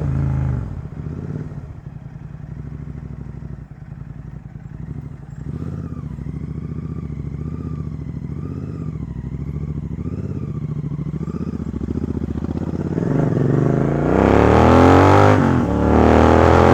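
Royal Enfield GT 650's parallel-twin engine through a Red Rooster aftermarket exhaust, ridden at a steady, lower note, then revving up hard and getting louder from about thirteen seconds in, with a brief break in the rise near the end.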